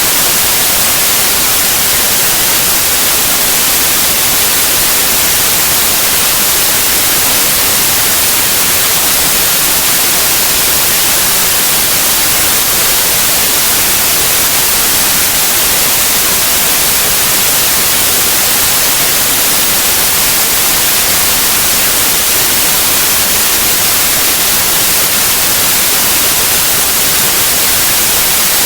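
White noise: a steady, even hiss, loud and unchanging, brightest in the high end.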